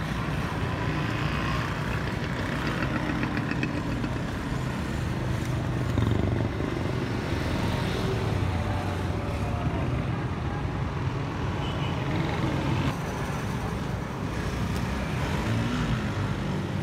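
Street background noise: a steady hum of road traffic and vehicle engines.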